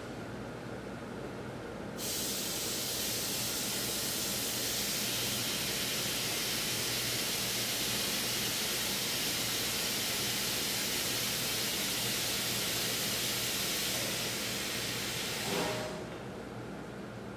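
Compressed air hissing steadily from the RHS-300 tire spreader's pneumatic lift as the tire table lowers. The hiss starts about two seconds in and stops with a short knock near the end.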